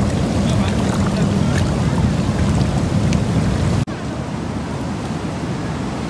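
Seawater washing and surging around mussel-covered tide-pool rocks close to the microphone, a dense rush with many small crackles and splashes. About two-thirds of the way through it cuts abruptly to softer, steadier surf.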